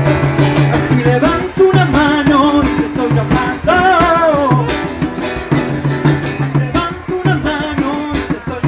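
Live acoustic folk-rock: strummed acoustic guitar and hand percussion keeping a steady beat, with a wordless vocal line gliding over it.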